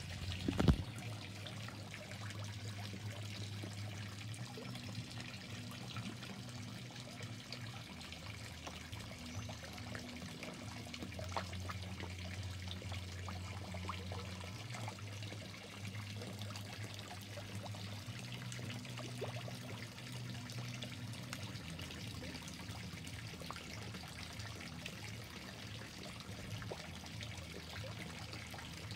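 Water trickling steadily in a koi pond, with small splashes and pops as koi feed on floating pellets at the surface, over a low steady hum. A single knock just under a second in is the loudest sound.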